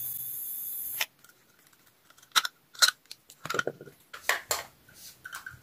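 A Powerway 5 V 2 A phone charger under load gives a steady high-pitched whine that cuts off suddenly about a second in; this squeal is the charger's fault, put down to its swollen 10 V 1000 µF capacitors. Then come a series of sharp clicks and knocks as the charger's plastic case and circuit board are handled.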